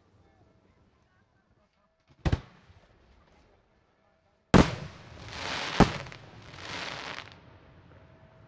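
Aerial fireworks bursting: a sharp bang about two seconds in, then a louder bang past the middle and another just over a second later, with two swelling hisses around and after them.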